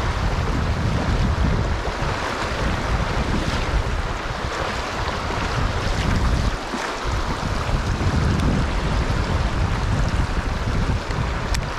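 Shallow river water rushing over shoals, a steady hiss, with wind buffeting the microphone in an uneven low rumble.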